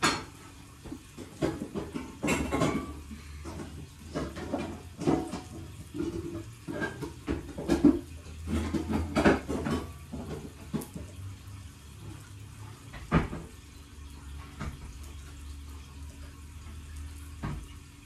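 Kitchen utensils clinking and knocking against bowls and pans in irregular strikes, thick through the first 13 seconds, with a single louder knock then and one more near the end, over a low steady hum.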